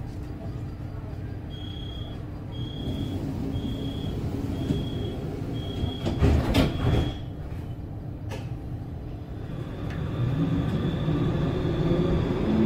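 Solaris Tramino tram's door warning beeping, about six short high beeps roughly a second apart, then the doors shutting with a heavy knock and a second, lighter one. Near the end the tram's drive grows louder with a faint whine rising in pitch as it pulls away.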